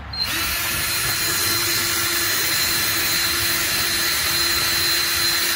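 Cordless drill starting a moment in and running at a steady speed with a steady high whine, boring out a hole in the truck's bumper with a bigger bit.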